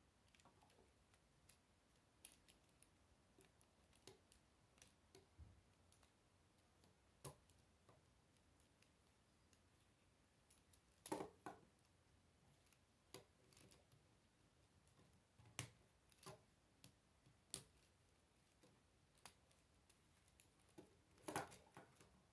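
K'nex plastic rods and connectors clicking and snapping together as they are fitted by hand: scattered sharp clicks, with louder snaps about halfway through and near the end.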